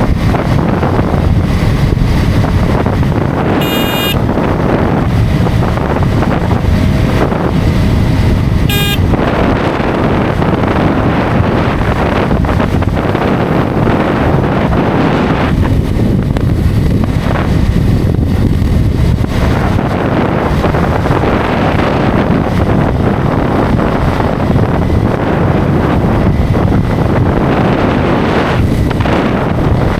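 Wind buffeting the microphone of a motorcycle at highway speed: a loud, steady low rush with engine and road noise beneath. Two short, high beeps cut through, about four seconds in and again about five seconds later.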